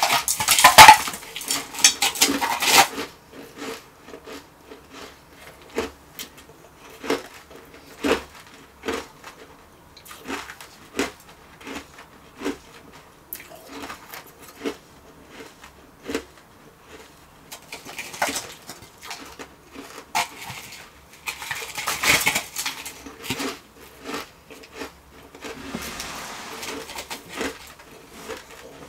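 Refrozen shaved ice crunching: loud crackling as a hand breaks into a frozen mound of it in a metal bowl for the first few seconds, then a long run of short, separate crunches from chewing. More bursts of crackling come as further chunks are broken off, the longest a little past the middle.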